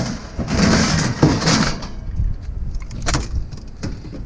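A discarded metal oven being handled and loaded: scraping and clattering with several sharp knocks in the first two seconds, then a few lighter knocks.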